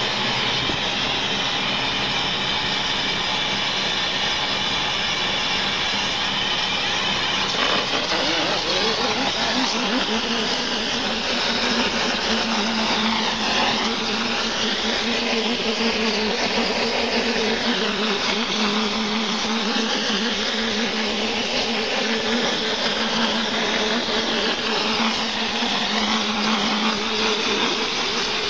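Mortar spraying machine at work: the air compressor runs steadily while compressed air hisses through the spray gun, blasting sand-cement mortar onto a wall. The low rumble thins out about ten seconds in, leaving a steady hum and a high hiss.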